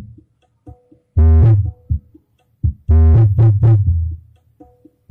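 Bass-heavy music played through an amplifier with a modified SOCL 504 bass driver and subwoofer filter, coming in loud phrases a couple of seconds apart over very deep bass. The microphone cannot handle the bass, so the sound is distorted.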